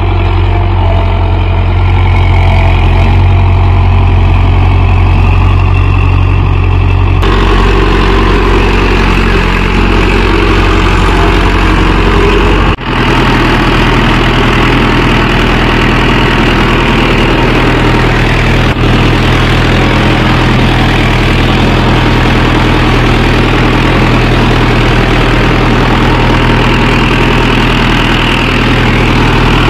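Mahindra Yuvo Tech+ 585 DI tractor's four-cylinder diesel engine running steadily under load while pulling a five-tine cultivator through the soil. Its sound changes abruptly about seven seconds in, and again after a brief dropout near thirteen seconds.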